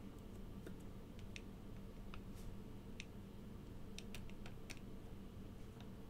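Soldering iron heating heavy solder joints on a small circuit board: faint, irregular clicks and ticks over a low steady hum.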